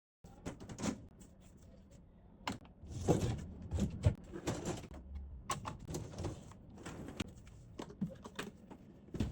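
Plastic parts clicking, knocking and rattling as they are handled and set into a dishwasher, with a few sharper knocks, the loudest around three and four seconds in.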